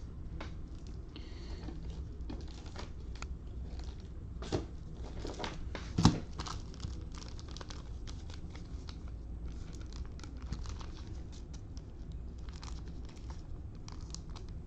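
Trading-card pack wrapper crinkling and being torn open, with cards being handled: irregular crackling throughout, louder crackles about four and a half and six seconds in.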